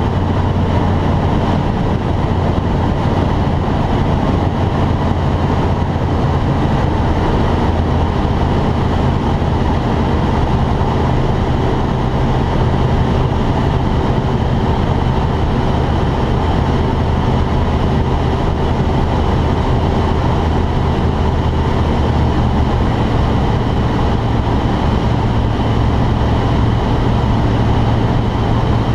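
Steady drone of a T-10M light aircraft's engine and propeller heard inside the cockpit, with airflow noise over the cabin.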